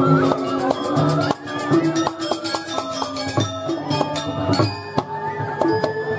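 Balinese gamelan accompanying a Jauk masked dance: bronze metallophones playing quick struck notes over held low gong tones, with drum strokes and cymbal clashes.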